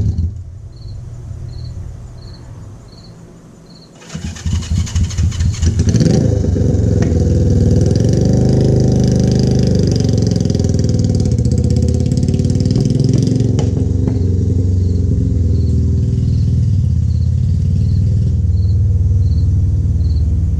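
A low rumble fades over the first few seconds. About four seconds in, a small motorcycle engine is kickstarted: it fires in uneven pulses and catches, then runs steadily with its pitch rising and falling as the bike is ridden off.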